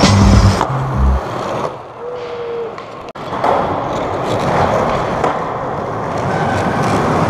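Skateboard wheels rolling on a smooth concrete floor. Near the start there is the scrape of a board grinding along a concrete ledge.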